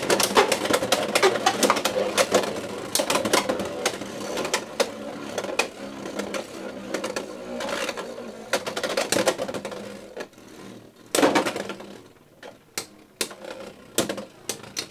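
Beyblade X spinning tops clattering in a plastic stadium, a rapid dense rattle of clicks over a steady hum. It thins out to scattered clicks after about ten seconds, with one louder clack about eleven seconds in.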